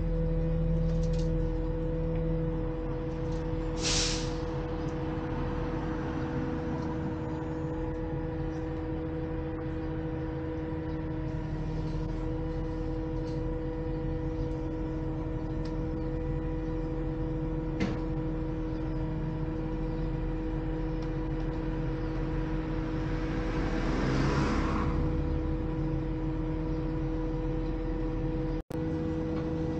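Autocar garbage truck with a McNeilus rear-loader body running at a standstill: a steady engine rumble with a two-tone whine over it. A short hiss of air comes about four seconds in, and a louder rushing swell comes a little after twenty seconds.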